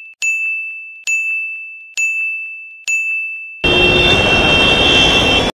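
A high electronic ding repeating about once a second, each ping fading away, added over the edit. A little over halfway through it gives way to a loud, steady hiss with a high whistle-like tone that cuts off abruptly.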